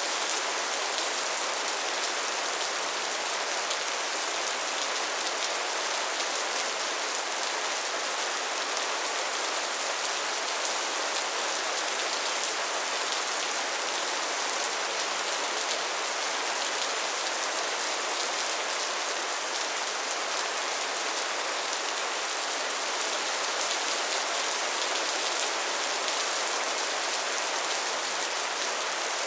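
Steady, gentle rain falling on a surface: an even patter of raindrops without thunder or breaks.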